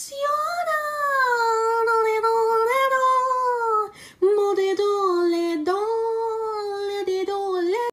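A high singing voice holding long, slowly gliding notes with little or no accompaniment, breaking off briefly about four seconds in.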